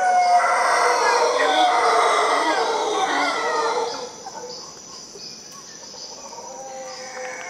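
Mantled howler monkeys roaring in chorus from the trees. The calls are loud and overlapping for about four seconds, then drop off to quieter, more drawn-out calls.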